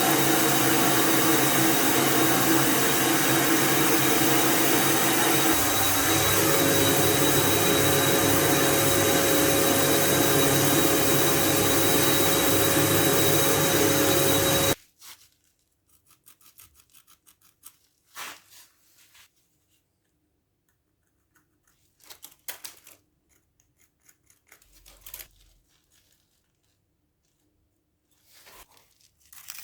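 An electric tool motor running steadily with a high whine, its lower pitch stepping up about six seconds in, then switched off abruptly halfway through. After that come only faint scattered clicks and rustles of handling.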